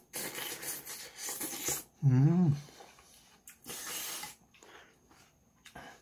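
A person slurping soup and bean sprouts off a spoon, with a short hummed 'mmm' that bends up and down about two seconds in, the loudest sound. Another slurp comes near four seconds, then a few faint clicks of the spoon and chopsticks.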